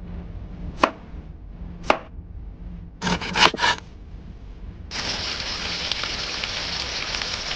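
Kitchen cooking sounds: two sharp knife chops on a cutting board, a short clatter of scraping strokes, then a steady sizzle of food frying that starts suddenly about five seconds in.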